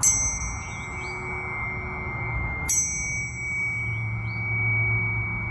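Planetary tuning forks struck twice, about two and a half seconds apart. Each strike gives a bright metallic clang that dies away quickly, and the forks keep ringing with steady pure tones in between.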